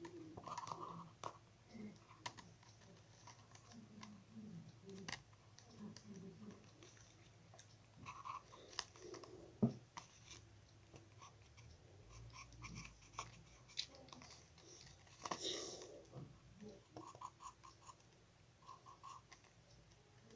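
Faint scratching of a thick pencil drawing on notepad paper, with scattered small ticks and brief rubbing noises.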